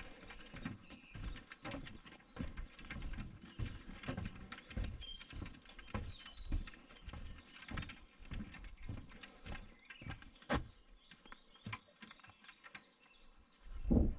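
Footsteps on a wooden boardwalk: steady knocks of feet on the planks, about two a second, with one louder thump near the end.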